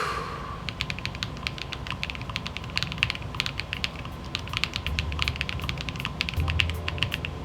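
Keys being typed on a freshly assembled custom mechanical keyboard: a quick, uneven run of sharp key clicks, starting just under a second in, as a first typing test of the new build.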